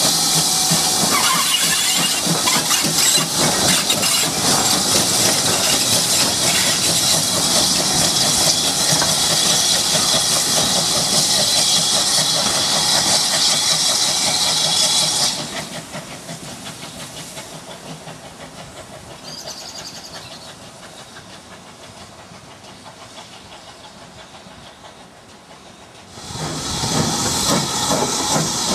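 GWR 5700 Class pannier tank steam locomotive hissing steam loudly as it passes close by. About halfway the hiss cuts to a much fainter distant background, and near the end loud steam hiss returns.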